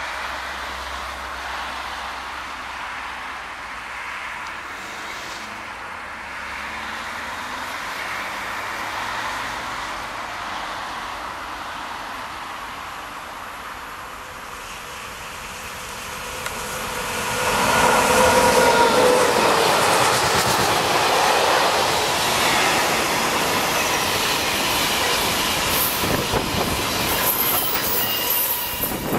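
Freight train of hopper wagons approaching and passing close by. A steady rail rumble grows suddenly louder a little past halfway, with brief whining tones as the head of the train goes by, then the wagons roll past with a fast clatter of wheels.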